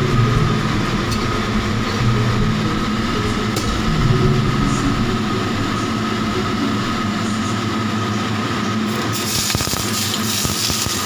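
Steady rumble and hiss of water boiling in a steamer pot under a whole fish, with a thin steady whine running through it. A brighter, higher hiss joins about nine seconds in.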